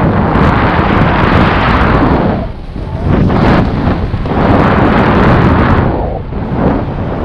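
Loud wind buffeting a GoPro Hero7 Black's microphone while snowboarding down a groomed slope, mixed with the board scraping over packed snow. The rushing noise eases off briefly twice, about two and a half and about six seconds in.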